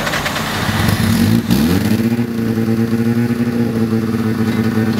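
Rotary engine running on Harley-Davidson motorcycle carburetors: unsteady and loud at first, then about a second and a half in the revs fall and it settles into a steady idle.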